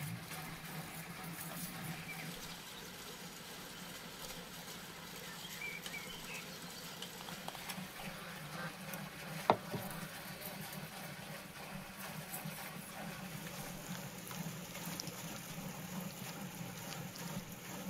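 Soft, wet handling sounds of a thick sauce being spooned from a wooden bowl, poured, and rubbed by hand over a raw salmon fillet on a wooden board, with one sharp knock about halfway through. A steady low hum runs underneath.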